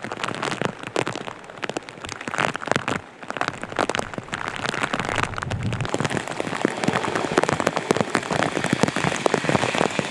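Heavy rain falling hard, a dense steady hiss packed with sharp drop hits close by.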